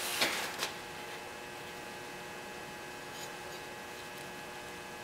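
Faint steady electrical hum in a quiet room, with a couple of light clicks in the first second.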